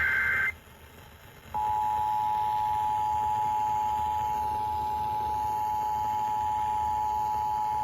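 Emergency Alert System signal on FM radio. The end of a SAME digital header burst stops half a second in. After about a second's pause, the steady two-tone EAS attention signal starts, announcing a severe thunderstorm warning.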